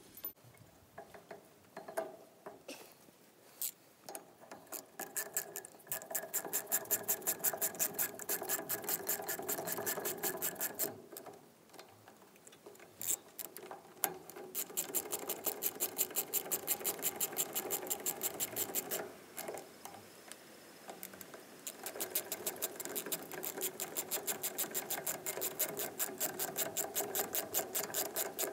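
Ratchet spanner clicking in quick runs of about five clicks a second, three runs with short pauses between, as new bolts are done up on the dozer's hydraulic hose fitting.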